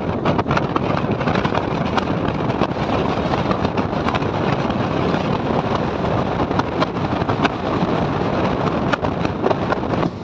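Passenger train in motion, heard on board: a steady loud noise of wheels running on the track mixed with wind, with scattered sharp clicks and knocks from the running gear.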